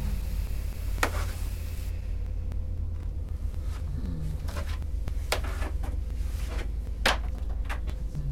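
A person clambering up into a cramped space: scattered sharp knocks and bumps over a steady low hum.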